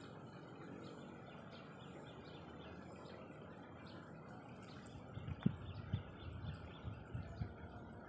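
Small birds chirping in short, repeated notes over a faint steady outdoor hum. From about halfway through, irregular low thumps of wind or handling on the microphone come in, the loudest a little past the middle.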